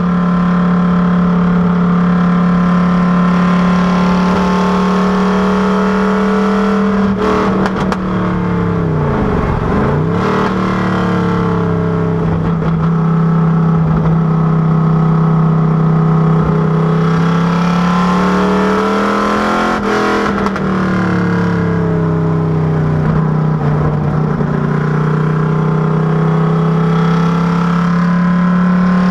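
FFR Cobra Daytona Coupé's V8 running under steady, moderate revs, its pitch drifting gently up and down without any gear change.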